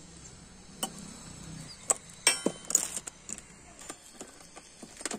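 Sharp metallic clinks and clicks from hand tools and loose bolts while a chrome grab rail is bolted onto a moped's rear frame. There are a handful of separate clinks, the loudest cluster about two to three seconds in.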